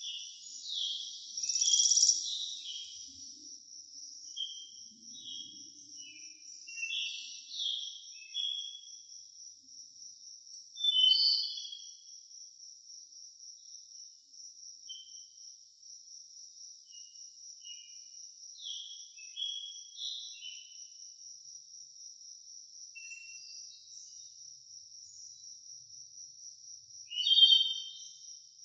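Small birds chirping in short, high notes scattered throughout, with the loudest bursts about two seconds in, near the middle and near the end, over a continuous high-pitched insect trill.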